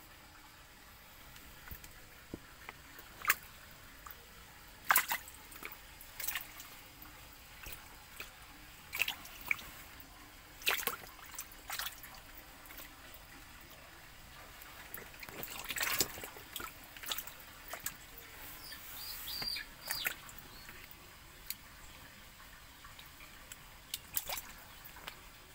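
Large frogs splashing in shallow water as they lunge at floating feed pellets: irregular sharp splashes and plops, some in quick pairs, over a faint steady hiss.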